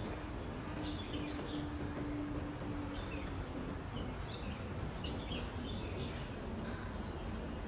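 A steady high-pitched drone of insects with short bird chirps scattered through it, over a low background rumble and a faint steady hum.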